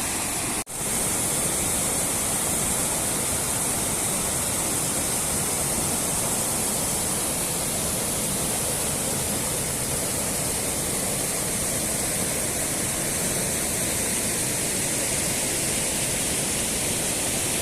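River water rushing steadily over rocks, an even continuous roar with no breaks after a brief dropout near the start.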